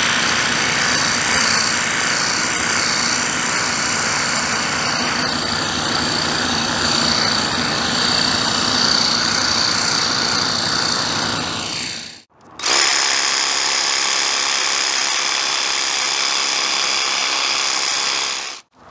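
Draper D20 cordless portable pressure washer running, its battery-driven pump giving a steady high whine as it sprays soapy foam from the attached foam bottle. It cuts out for a moment about two-thirds of the way through, starts again, and stops near the end.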